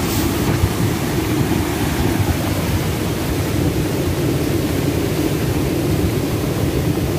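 Steady rushing of a flooded river.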